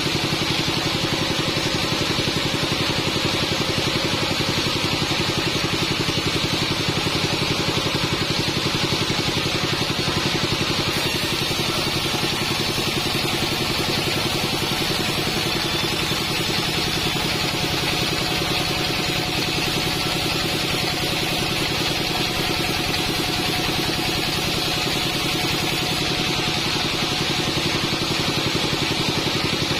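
Modified Bandsaw 48 band sawmill running steadily, a continuous machine drone with steady tones. A faint high hiss comes in about a third of the way through and drops out near the end.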